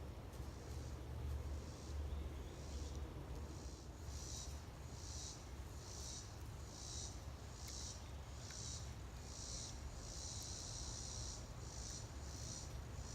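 An insect chirping outdoors in a steady rhythm of short, high, buzzy pulses, about one and a half a second, with one longer unbroken buzz near the end, over a steady low rumble.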